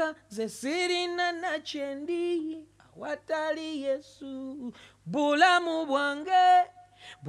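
A man singing a few unaccompanied phrases into a microphone, with held notes and sliding pitches broken by short pauses.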